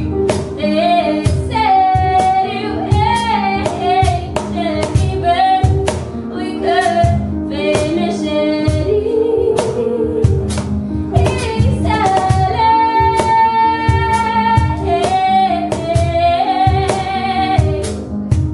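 A woman singing a song, accompanied by upright piano and steady cajon beats; she holds one long note about two-thirds of the way through.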